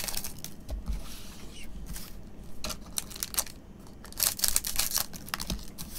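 Scissors snipping open foil-wrapped Topps Japan Edition trading card packs, a string of irregular crisp snips with the wrappers crinkling as they are handled.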